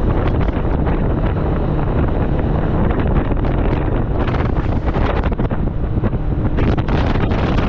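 Heavy wind buffeting the microphone on a boat running at speed, a loud steady rush with a low rumble underneath.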